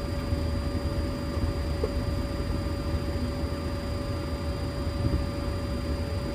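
Steady cockpit noise of a Boeing 737-800 rolling slowly onto its stand with the engines at idle: a constant low rumble with a steady whine on top.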